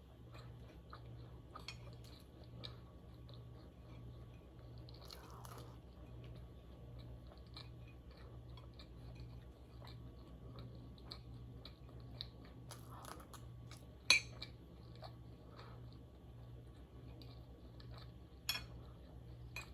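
Close-miked chewing and biting of food, with small crunches and mouth clicks and a couple of sharper clicks, about 14 and 18 seconds in.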